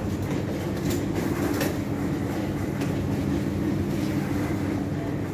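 Steady low mechanical hum of a supermarket's machinery, with a few level tones in it and occasional faint clicks.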